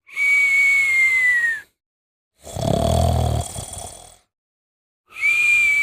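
Snoring with whistling: a clear whistle that sags slightly in pitch at its end, then a rumbling snore breath, then the whistle again near the end.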